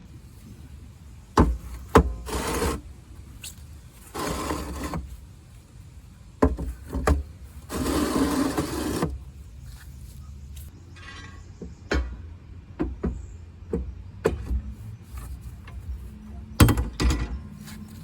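Scattered sharp knocks and clanks, with three longer scraping slides of up to a second or so, as the doors and fire brick are fitted back into a wood-fired pool heater.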